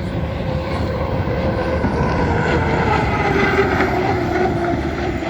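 Racing hydroplane's engine going past at speed, a loud steady drone whose pitch slides steadily downward as it passes.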